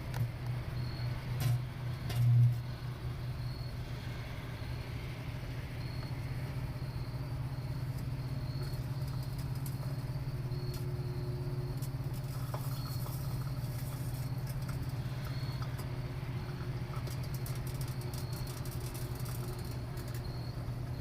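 Microwave oven running with a steady low hum, a can heating inside it. A loud knock comes about two seconds in, and a scatter of faint ticks near the end.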